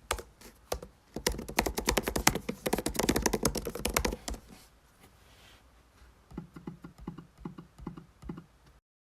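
MacBook keyboard typing: a quick, dense run of key clicks, then after a short pause a slower series of duller clicks. The sound cuts off suddenly near the end.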